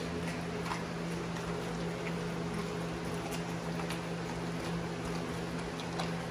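Pit bull chewing raw whole fish from a bowl: scattered crunches and clicks about once a second, over a steady low hum.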